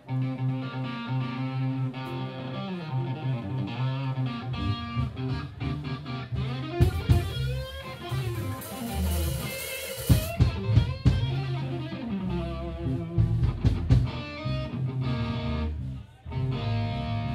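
Live band music: an electric guitar plays lead lines full of bent, wavering notes over steady low bass notes, with a bright cymbal wash in the middle.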